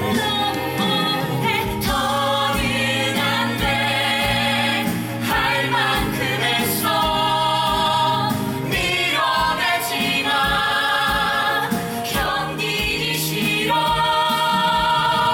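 Stage-musical cast singing a number together, several voices with instrumental accompaniment.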